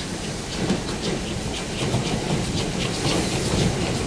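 A French 030 T (0-6-0) steam tank locomotive and its wooden coaches roll by at close range, with the wheels clicking over the rail joints and the train growing louder as it approaches.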